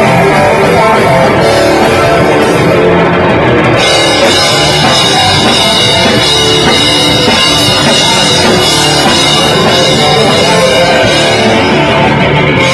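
Metal band playing live: distorted electric guitars and a drum kit, loud and dense throughout, with a high steady tone joining about four seconds in.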